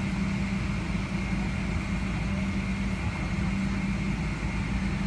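Steady drone in the cabin of a Boeing 757-300 during pushback, with a low hum that comes and goes over the hiss of the cabin air.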